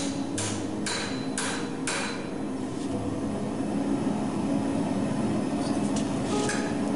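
Hand hammer striking a hot rail spike on a steel anvil while forging a knife: about five blows half a second apart, then a pause while the spike is turned, then a few lighter blows near the end.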